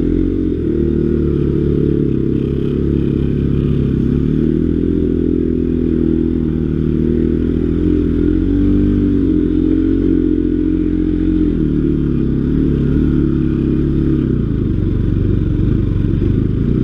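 Motorcycle engine running under load on a rough track. Its pitch rises about four seconds in, wavers, and drops back again about three-quarters of the way through.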